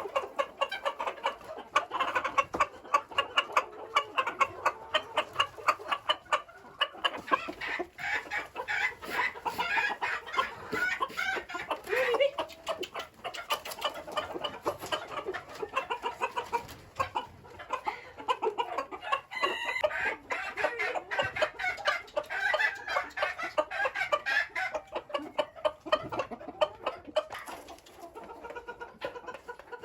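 Flock of chickens clucking and calling busily, with many short rapid clucks and a rooster crowing among them.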